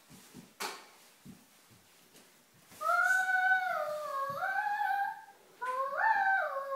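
A young girl humming a wordless tune in long, gliding held notes, in two phrases that begin about three seconds in. A single sharp click comes in the first second.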